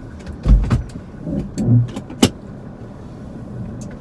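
Handling noises inside a car cabin: a couple of heavy low thumps, a short low hum, then one sharp click, over a steady low background hum.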